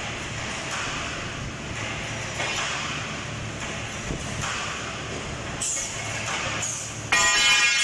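CNC circular cold saw running an automatic bar-cutting cycle: a steady motor hum with a hissing, grinding cutting noise that comes and goes about once a second. Near the end a loud, high ringing tone starts suddenly.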